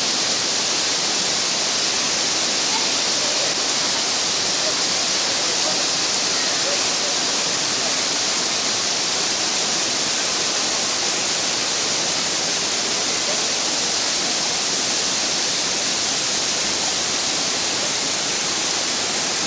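A waterfall's falling water making a steady, unbroken rush.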